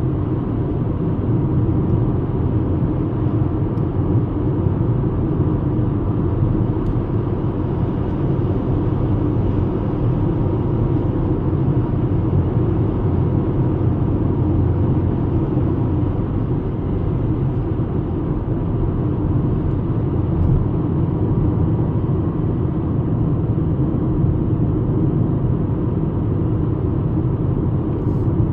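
VW Golf Mk5 with a 75 hp engine driving at a steady speed: a constant rumble of engine and tyres on the road.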